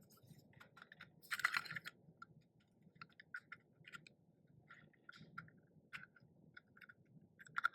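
Faint scattered clicks and taps of 3D-printed plastic enclosure parts being handled and fitted together, with a louder scraping rub about one and a half seconds in as a part slides into its slot.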